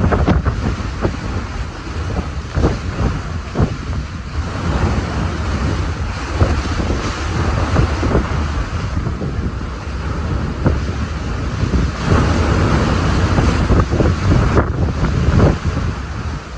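Strong hurricane wind blowing and gusting, buffeting the microphone with a loud low rumble and repeated sharp thumps of wind hitting it.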